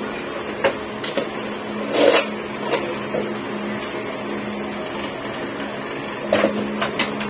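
A steady low mechanical hum, with scattered light clicks and knocks and a short rustling burst about two seconds in.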